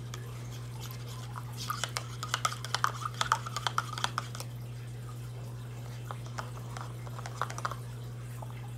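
A spoon stirring a drink in a plastic cup: a quick run of small clicks and scrapes between about two and four seconds in, and a few more later. A steady low hum runs underneath.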